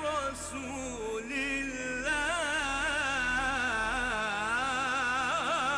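Solo male voice singing an Arabic devotional song with long, ornamented melismatic runs. From about two seconds in it holds one drawn-out syllable that wavers up and down in pitch.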